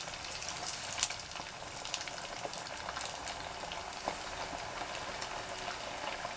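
Breaded pork belly cubes deep-frying in hot soybean oil, a steady sizzle dotted with many small crackling pops, with one louder pop about a second in. The pieces have just been lowered into the oil.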